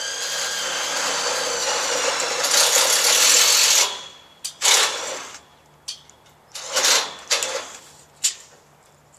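Metal greenhouse vent shaft scraping as it is pushed through a shaft hanger: a steady metal-on-metal grind for about four seconds that cuts off abruptly, followed by a few short scrapes.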